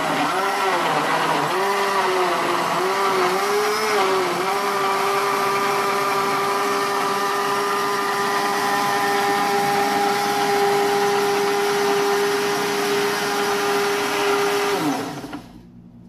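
Spolu high-speed industrial blender running, puréeing carrot pieces in water. Its motor pitch wavers for the first four seconds or so as the chunks churn, then holds steady. Near the end it is switched off and winds down.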